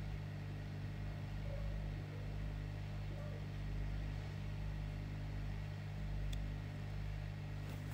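Steady electrical hum with an even whoosh of moving air from the electronics soldering bench's powered equipment, and a faint tick about six seconds in.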